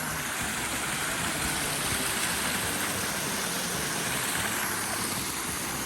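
Steady, even rush of flowing water from a mountain stream.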